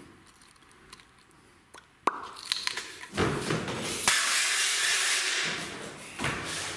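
A single click about two seconds in, then rustling and scraping of plastic and foam packaging being pulled off a new electric scooter.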